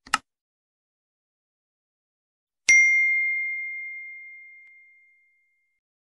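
Subscribe-button sound effects: a short mouse click, then almost three seconds in a single bright notification-bell ding that rings out and fades over about two and a half seconds.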